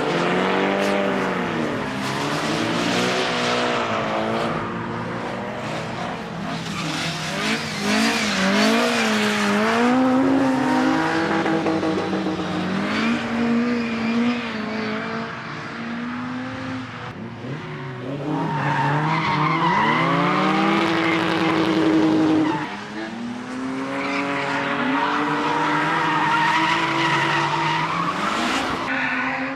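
Retro race cars' engines revving up and down as they drift past one after another, over tyre squeal and skidding noise; at times two engines are heard at once.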